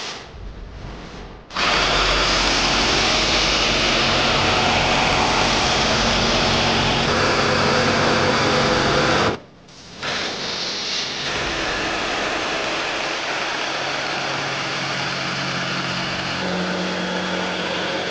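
DeWalt cordless jigsaw running and cutting through plywood. It starts about a second and a half in, stops briefly about nine seconds in, then cuts on steadily.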